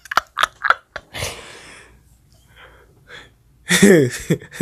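A person's breathy vocal sounds: a few quick puffs and clicks, then a gasp-like breath, and near the end a short voiced sound falling in pitch.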